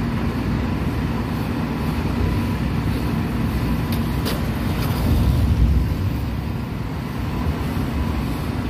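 Truck-mounted crane's engine running steadily while the crane lifts a load of logs, mixed with road traffic. A couple of sharp clicks about four seconds in, and the low rumble swells around five to six seconds.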